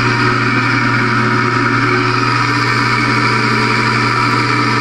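Craftsman four-speed drill press with its half-horsepower motor running unloaded at stock speed, the spindle and hole saw spinning freely: a steady hum.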